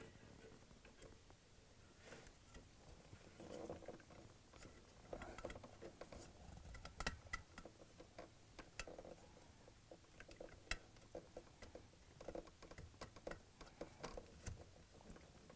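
Faint, scattered small clicks and rustles of hands pushing a wiring plug onto a refrigerator compressor start device.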